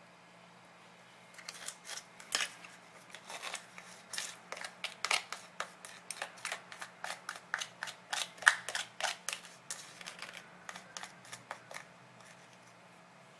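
A run of irregular sharp clicks and taps, several a second, from small hard objects being handled. It starts about a second in and stops about two seconds before the end.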